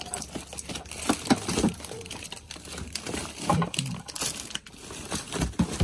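Plastic bags of frozen food rustling and crinkling as packages are shifted about in a freezer drawer, with scattered light knocks.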